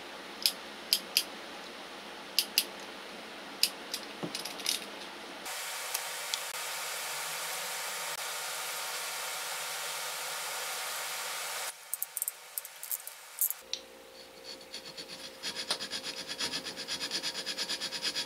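Sharp small clicks and taps of hand tools and wires being handled at an electric motor's stator, with a steady hiss through the middle. From about 14 s in, a hand file rasps on the blower's aluminium motor housing in quick, even strokes.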